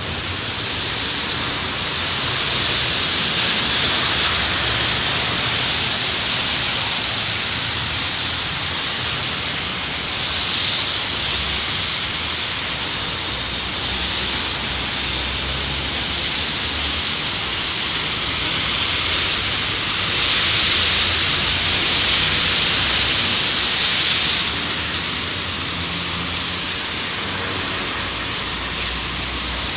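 Steady hiss of rain and tyres on wet city streets, swelling several times as vehicles pass.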